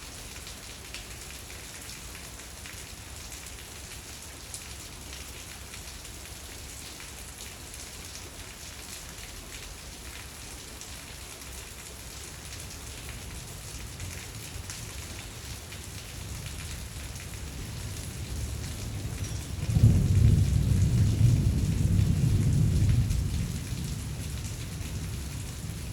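Steady rain falling, with thunder: a low rumble builds through the middle, breaks into a loud rumble about three-quarters of the way through, and eases off a few seconds later.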